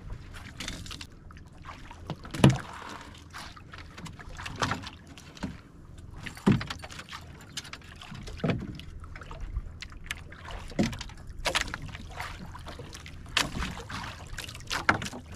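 Knocks and clacks of handling on a small outrigger fishing boat, about eight of them at irregular spacing, the loudest about two and a half seconds in, over a steady low wash of water and wind.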